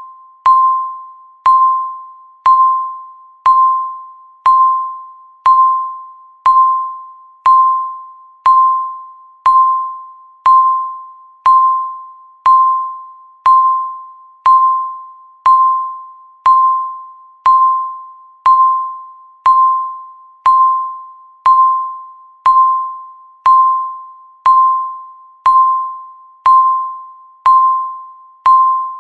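Countdown timer beeping once a second: a single high electronic beep that starts sharply and fades away quickly, repeating evenly, one for each second counted down.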